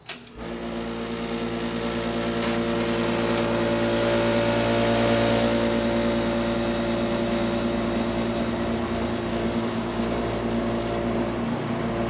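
1963 General Electric Thinline through-the-wall air conditioner switched on with a click, starting up on low and settling into a steady hum with a rush of air that swells over the first few seconds. It runs super quiet, a sound the owner takes for a healthy compressor.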